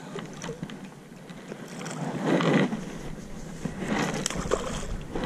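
A hooked fish thrashing and splashing at the water's surface beside the boat, in two short bursts about two and four seconds in.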